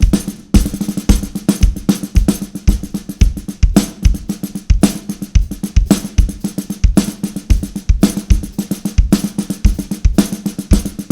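Drum kit played in a steady groove: kick drum, cymbals and a snare fitted with a Big Fat Snare Drum Snare-Bourine Donut pad, whose jingles add a tambourine-like rattle to the muffled snare.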